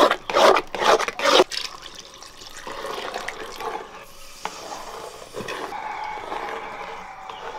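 A metal spoon scrapes thick banana puree around an aluminium pan in a few quick strokes. Then, about two seconds in, coconut milk is poured in with a steady watery pour and stirred through the liquid.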